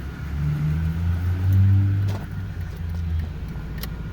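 A 10th-generation Ford F-150 pickup's engine running at idle: a steady low rumble that swells briefly about a second and a half in, with a single click about 2 s in.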